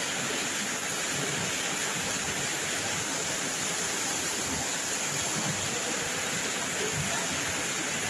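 Steady rain falling, an even hiss that does not let up.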